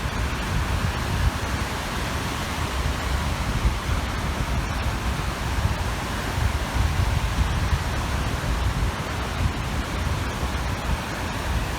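Wind blowing across the microphone in uneven gusts over a steady rushing wash of waves breaking on the shore.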